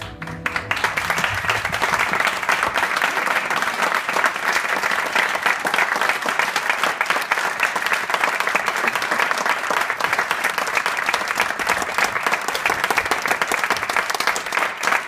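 Audience applauding, a dense steady clapping that starts right as the classical music ends.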